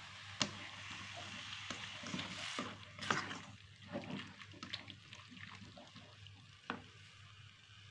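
Sliced beef simmering in a little water in a pan, with a soft sizzle that fades after about three seconds, while a spatula stirs, scraping and knocking against the pan several times.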